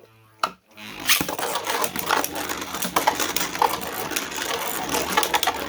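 Two 3D-printed Beyblade spinning tops launched about a second in, then spinning and clashing in a plastic stadium: a dense, rapid rattle of clicks and scrapes.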